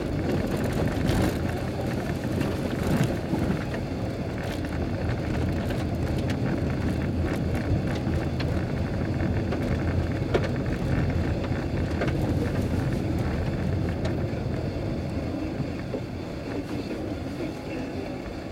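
Car driving on an unpaved gravel track, heard from inside the cabin: a steady rumble of tyres and engine, with scattered short clicks.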